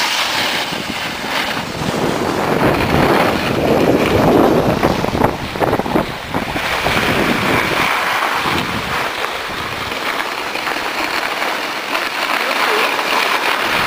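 Wind rushing on the microphone of a camera carried down a ski run, mixed with the hiss and scrape of snow being slid over, as a steady loud noise.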